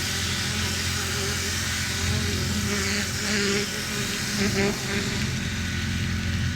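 Pressure washer running with a steady hum, its turbo nozzle jetting water with an even hiss onto roof tiles to clean off moss.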